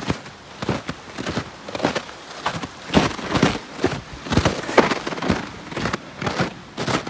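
Footsteps crunching in snow at a steady walking pace, about two steps a second.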